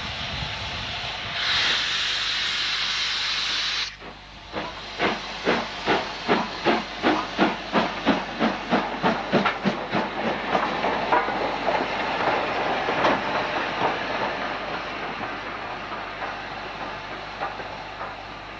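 Steam locomotive hissing steam, the hiss swelling for a couple of seconds and then stopping abruptly. It then gives a run of steady exhaust chuffs, about two and a half a second, loudest as it passes close by and then fading, while the hiss carries on.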